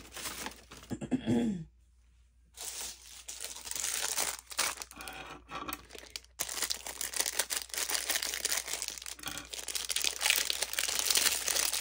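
Thin clear plastic packaging bag crinkling and rustling as it is torn open and a silicone shaker-box mold is pulled out of it. The dense crackling starts about two and a half seconds in.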